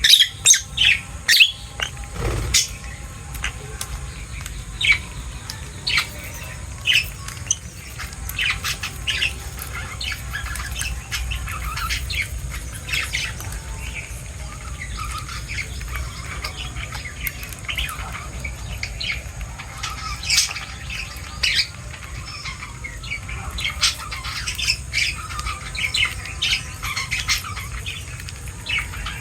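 A group of birds chirping and squawking, many short calls overlapping without a break, over a steady low rumble.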